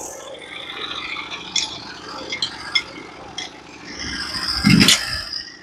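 Metal parts of a manual bandsaw mill being handled as it is set for a cut: scattered light clicks and scrapes, then a louder clunk and rattle near the end.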